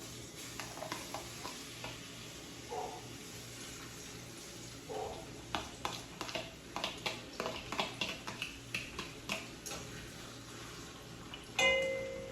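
Kitchen utensils tapping and scraping against dishes and pots over a steady hiss, with a quick run of clicks in the middle and one loud ringing clink near the end.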